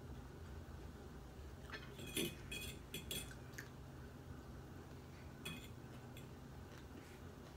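Metal fork clinking on a dinner plate during a meal: a handful of light clinks about two to three and a half seconds in, and one more about five and a half seconds in, over a faint steady hum.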